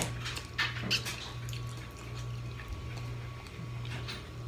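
Wet mouth sounds of eating a steamed clam: a few short smacks and slurps about half a second to a second in, then quieter chewing. A steady low hum runs underneath.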